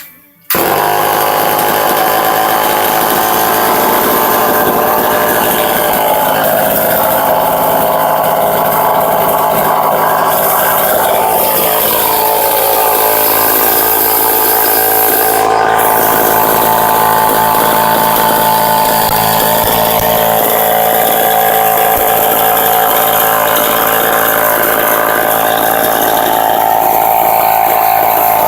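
Homelite XL12 54cc two-stroke chainsaw firing up about half a second in and then running steadily. It is a warm restart and catches straight away.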